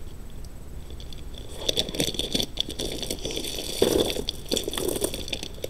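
Thin clear plastic bag of beads being handled and opened: crinkling and rustling plastic with scattered small clicks.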